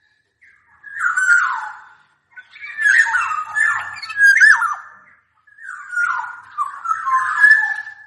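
Black-naped oriole (kepodang) singing: rich fluting whistles with quick falling slurs, in three bursts of phrases with short pauses between them.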